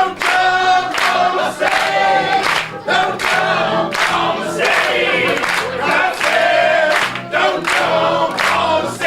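Group of voices singing a spirited gospel song together, with piano accompaniment.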